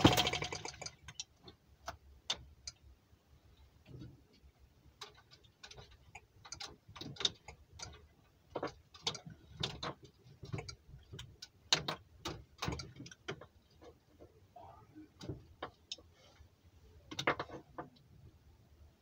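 Tiny M12b 2.6 cc water-cooled four-stroke model gas engine being flicked over by hand without starting: irregular clicks and knocks as the flywheel is spun against compression, with a short, loud rattle at the very start. The raised compression of the sealed, modified engine keeps it from catching on a flick of the hand.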